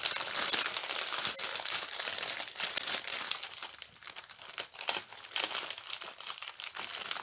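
Packaging crinkling and rustling as a diamond painting kit is handled and unwrapped, with irregular crackles.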